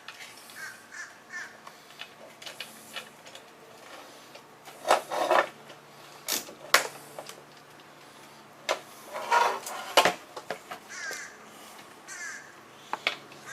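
Scattered clicks and knocks of hand tools working bolts on a motorcycle's rear fender, with a few short, harsh animal calls in between.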